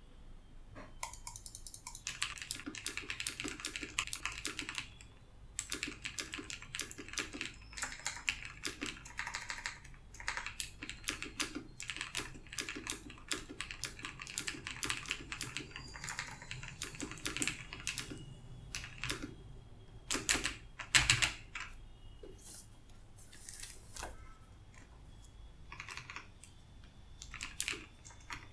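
Typing on a mechanical keyboard with Long Hua Blue clicky switches (Cherry MX Blue clones) lubed with coconut oil: fast runs of key clicks with short pauses, and a few louder clacks about two thirds of the way in.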